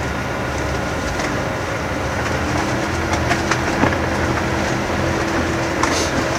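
Tour boat's motor running steadily under way: a low, even drone with a hum that grows stronger about two and a half seconds in, and scattered light clicks and knocks over it.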